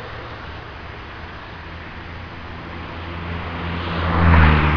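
Airbus A318 airliner's jet engines running as it rolls along the runway: a steady low hum under a rushing noise that swells louder about four seconds in.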